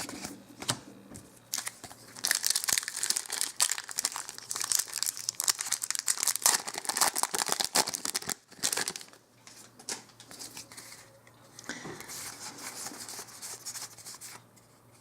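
A Magic: The Gathering booster pack's foil wrapper being torn open and crinkled, loudest for several seconds, then dying down to softer rustling as the cards come out.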